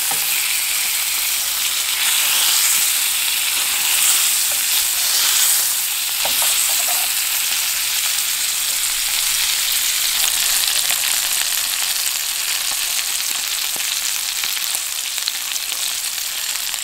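Pheasant breast fillets sizzling steadily in olive oil and butter in a hot frying pan, with a couple of faint clicks.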